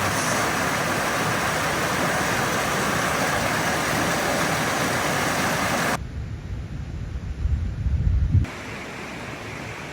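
Mountain stream water rushing steadily. About six seconds in it cuts to a quieter stretch, with low wind rumble on the microphone for a couple of seconds, then a softer steady rush of water.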